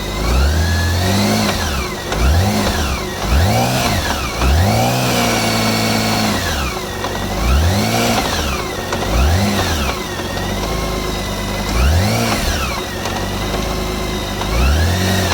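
BMW K1600 GTL-E's inline-six engine revved up and down in a run of about eight short blips, in third gear on the center stand. It carries a rattle and banging that the owner traces by stethoscope to the transmission housing.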